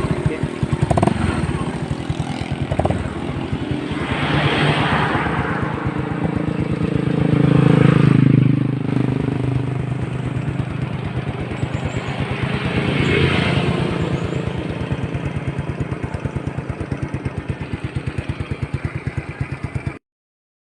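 Yamaha Mio Sporty scooter's single-cylinder four-stroke engine running through an aftermarket Hero racing exhaust pipe. It pulses steadily at idle and is revved up three times, about four, eight and thirteen seconds in, then cuts off suddenly near the end.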